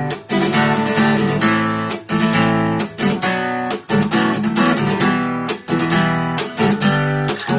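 Acoustic guitar strumming chords in a steady, even rhythm.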